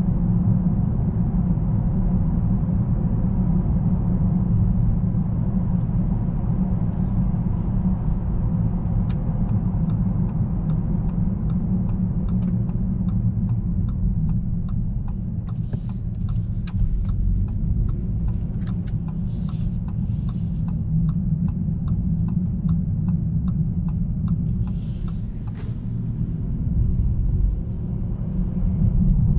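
Inside the cabin of a 2019 Bentley Continental GT on the move: a steady low engine and road rumble. For much of the middle stretch an evenly paced ticking runs at about two to three ticks a second, typical of the turn-signal indicator. A few brief hisses pass near the end.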